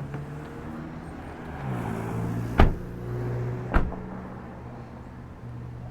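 A car engine idling steadily, its pitch stepping up briefly about two seconds in. Two sharp knocks land over it, about a second apart, like car doors being shut.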